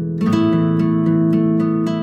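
Background music: a gently strummed acoustic guitar, plucks falling about twice a second over held notes.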